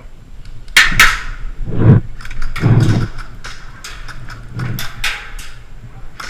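Scattered sharp clicks and knocks, the loudest near the first second, with two heavy thuds about a second apart.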